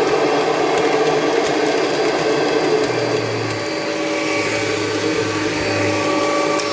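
Kirby G5 upright vacuum cleaner running steadily while vacuuming, its tone shifting slightly about three seconds in.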